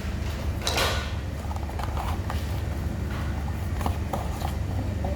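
Handling of blind-box toy packaging: a rustle of cardboard or plastic about a second in, then a few light clicks and taps. A steady low hum runs underneath.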